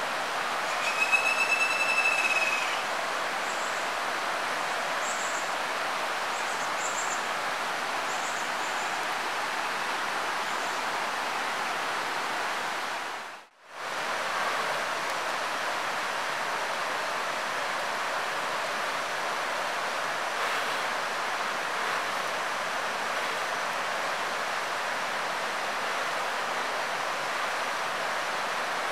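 Steady rushing of a forest stream, an even hiss of water. About a second in, a high whistling call rises above it for a second and a half, followed by faint high chirps. The sound drops out briefly about halfway through.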